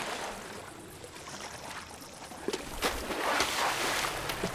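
Shallow water splashing and trickling as elephants step and stir in a waterhole, with a louder run of splashes in the second half.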